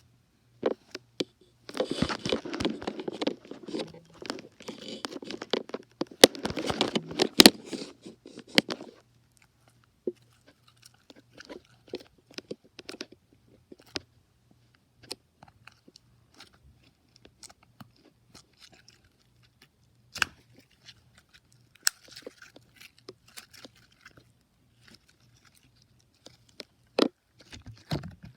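Slime being squeezed and worked by hand, giving off crunchy crackling and popping. A dense run of crackles fills the first several seconds, then only scattered pops and clicks follow.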